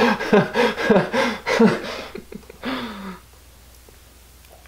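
Laughter, a run of quick laughing pulses that tails off with a falling sound about three seconds in.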